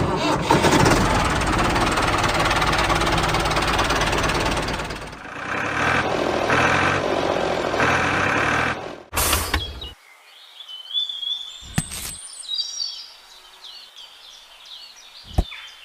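Loud, rough engine-like mechanical running for about nine seconds, then it stops and birds chirp against a quiet background.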